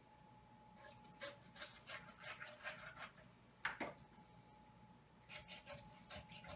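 Kitchen knife cutting through raw chicken on a wooden cutting board: a run of faint short crackles and scrapes, a sharper click a little past halfway, then more crackles near the end, over a faint steady hum.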